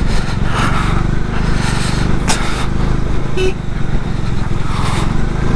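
Bajaj Dominar 400's single-cylinder engine running steadily at low speed on a rough gravel mountain road, with a brief knock about two seconds in.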